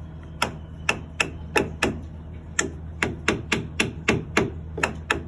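A hammer tapping in a quick, uneven series of light strikes, about three a second, starting about half a second in.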